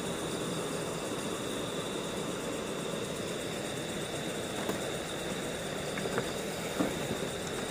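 Steady, even rushing noise with a constant thin high whine above it, and a few faint clicks near the end.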